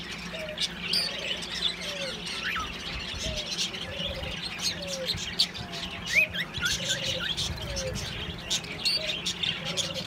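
A flock of caged budgerigars chattering and chirping continuously with many overlapping high notes. A lower, falling call repeats about once a second over a steady low hum.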